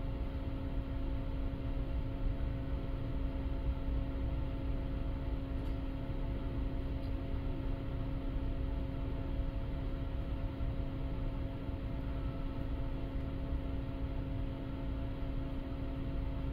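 Steady drone of a car ferry's engines and machinery heard on board, a low rumble with a constant hum that does not change.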